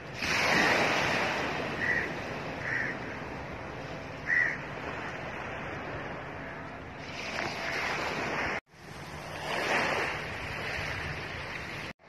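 Small waves washing onto a sandy beach, swelling and easing, with a few short high-pitched cries in the first few seconds. The sound drops out briefly about two-thirds of the way through.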